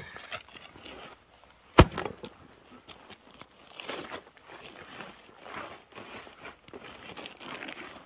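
Footsteps crunching irregularly over the ground, with one sharp knock about two seconds in.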